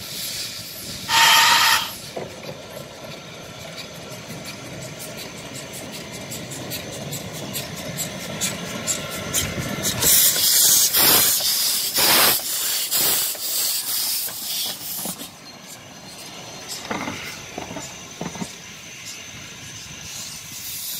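Kp4 narrow-gauge steam locomotive moving off under steam: a short whistle blast about a second in, then steady steam hissing. Its exhaust chuffs and steam hiss grow loud as it passes close, between about 10 and 15 seconds, then fade as it draws away.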